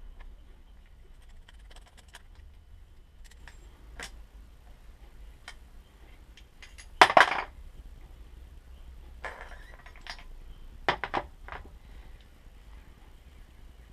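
Hard metal tools and small parts clinking and clattering on a work surface. There are scattered light clicks, a loud clatter about seven seconds in, a short scrape, and a few more sharp clinks about eleven seconds in.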